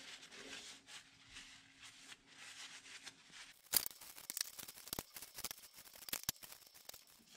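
Quiet handling of thin steel bar stock being wiped with a paper towel over a glass dish. From about four seconds in there is an irregular scatter of light clicks and taps as the steel pieces knock against each other and the glass.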